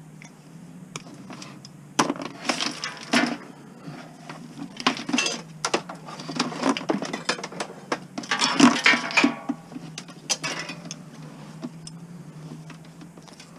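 Plastic bulb sockets being snapped and stripped off a string of Christmas lights for the copper wire: several bursts of cracking, crunching and clinking. The owner finds them hard to get off and puts it down to the plastic being cold and brittle.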